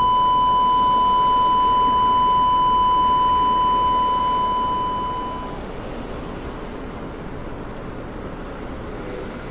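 A steady, high-pitched electronic beep tone over an even rushing hiss; the tone fades out about five and a half seconds in, leaving the hiss on its own.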